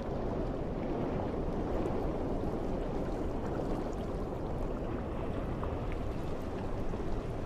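Steady low rushing of seawater heard underwater, with a few faint ticks and no whale calls.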